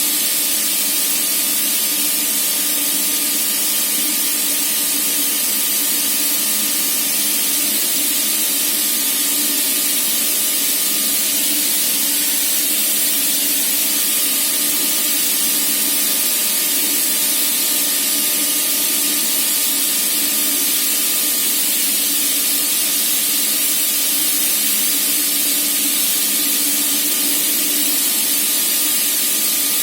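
Gardner Denver ES15 screw compressor running at full load, its compressed air blowing off through the flowmeter and silencer in a steady, loud hiss with faint steady tones beneath. The freshly repaired screw pair is delivering about 2.35–2.4 m³/min at 7.4 bar, which matches the manufacturer's specification.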